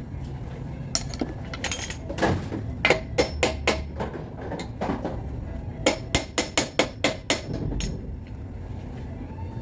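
Hammer striking metal in uneven runs of sharp blows. It ends in a quick burst of about eight strokes, roughly six a second.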